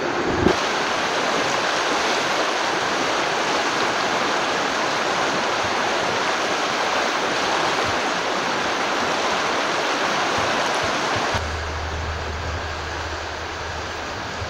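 River water flowing and rushing steadily. About three-quarters of the way through the rushing drops a little quieter and a steady low rumble comes in under it.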